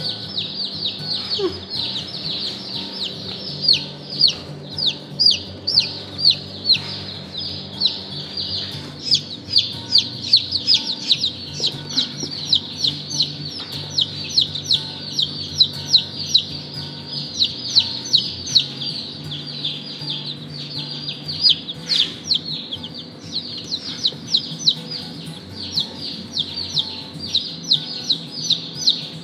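A group of day-old chicks peeping without pause: many short, high cheeps that slide downward in pitch, several a second.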